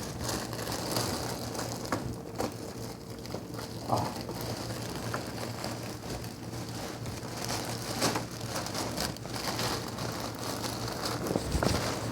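Steady low running hum and road rumble of a car cabin while driving, with scattered small rustles and clicks.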